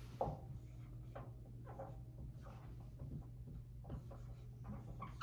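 Dry-erase marker writing on a whiteboard: a string of short, faint strokes as figures are written out, over a steady low hum.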